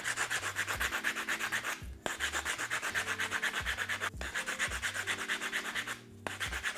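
Coarse sandpaper rubbed fast back and forth by hand over a wooden broomstick-handle lure blank, rounding off its edge. The strokes are quick, several a second, and come in runs broken by brief pauses about every two seconds.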